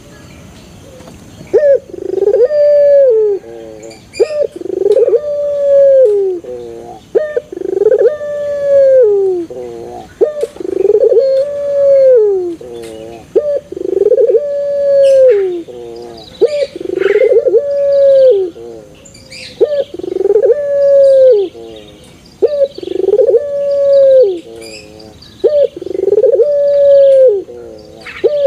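A three-month-old puter pelung (domestic ringneck dove) cooing over and over. It starts about a second and a half in and gives a coo roughly every two and a half seconds. Each is a long held coo that drops at the end and trails off in a short wavering tail.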